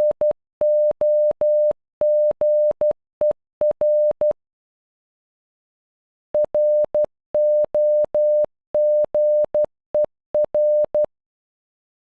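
Morse code for the word "ROGER" (.-. --- --. . .-.) keyed as short and long beeps of a single steady electronic tone. The word plays twice, with about two seconds of silence between; the first run ends about four seconds in and the second starts a little after six seconds.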